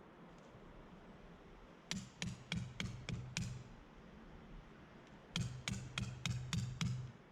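A hammer driving tarp pegs into the ground: two runs of quick, sharp blows about three a second, five in the first run and seven in the second, each with a dull thud under the crack.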